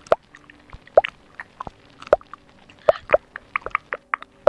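Close-miked ASMR mouth sounds: a string of irregular wet clicks and pops from lips and tongue, the louder ones about one, two and three seconds in.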